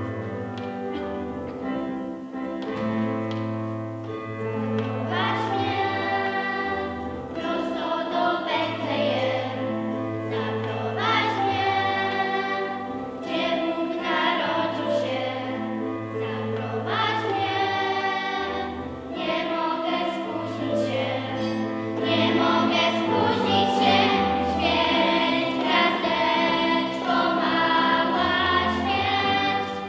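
Children's church choir singing a Christmas carol together, accompanied by an electronic keyboard that holds long low bass notes under the voices.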